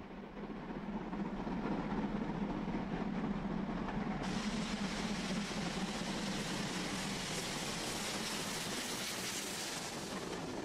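Steam locomotive hauling a passenger train past at speed: exhaust and the rolling noise of the engine and coaches on the rails. The sound builds over the first couple of seconds and turns suddenly hissier about four seconds in as the engine passes close by.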